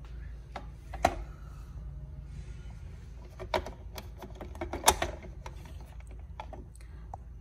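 Plastic parts of a Tefal ZC420 slow juicer knocking and clicking as the fine juicing screen is handled and seated into the juicing bowl: scattered sharp clicks, the loudest about a second in and near the five-second mark.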